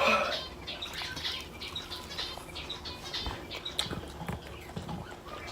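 A person chewing and smacking their lips while eating spicy food, close to the microphone: irregular small wet clicks and crackles.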